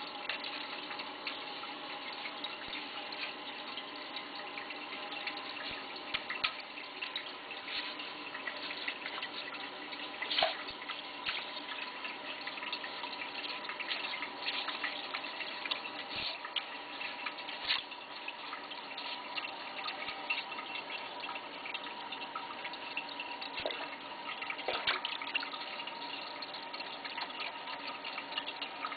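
Water sloshing and splashing in a clogged Kohler Wellworth toilet bowl as it is stirred and worked by hand and toilet brush, a steady watery churning dotted with many small splashes.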